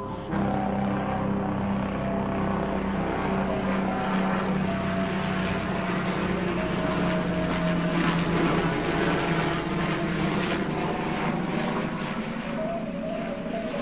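Propeller aircraft flying overhead: a steady engine drone that comes in about half a second in and swells to its loudest a little past the middle before easing off.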